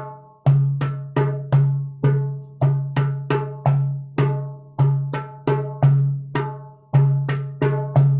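Small hand drum played with bare hands in the Haitian Yanvalou drum pattern: a repeating rhythm of bass strokes and open tones struck on the edge of the head, about two to three strokes a second, each ringing briefly.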